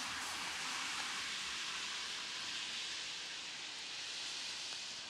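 Steady, even hiss of background noise with no distinct events, easing off slightly toward the end.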